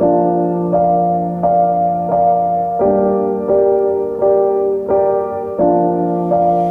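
Background music: piano chords at an even pace, a new chord about every three-quarters of a second.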